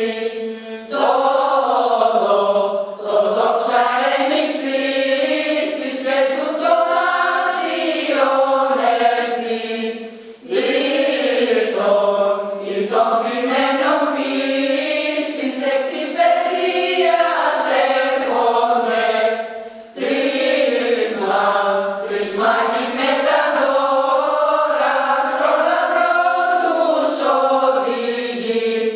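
A mostly women's choir singing a Greek Christmas carol (kalanta), unaccompanied, in long phrases with short breaks between them.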